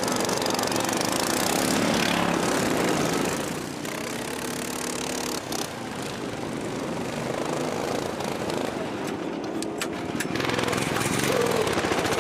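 Racing lawn mower engines running hard at speed, the sound louder at the start and again near the end as mowers pass.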